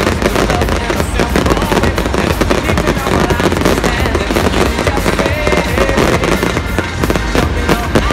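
Fireworks crackling and popping in rapid, dense succession, with loud music playing underneath.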